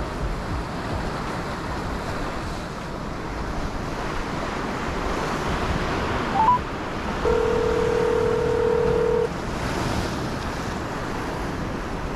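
Ocean surf washing against rocks, with wind on the microphone. About six and a half seconds in a short blip sounds, then a phone's ringback tone plays through its speaker: one steady ring lasting about two seconds as an outgoing call rings.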